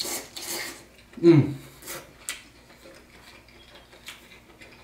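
A person slurping noodles from a bowl, then a short low hum falling in pitch about a second in, followed by soft chewing.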